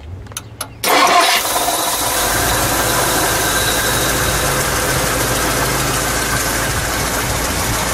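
1959 Ford 352 cubic-inch four-barrel V8 cranking briefly on the starter, catching just under a second in with a short loud burst, then settling into a steady, smooth idle.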